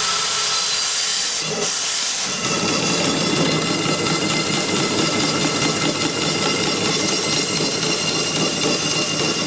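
Steam hissing steadily from around the cylinder of a small vertical steam engine, with a thin steady whistling tone through it. The hiss gets fuller about two seconds in.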